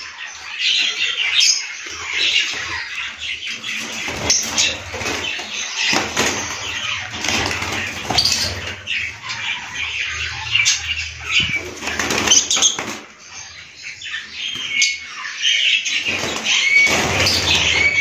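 Caged lovebirds flapping their wings in repeated flurries, with short chirps mixed in.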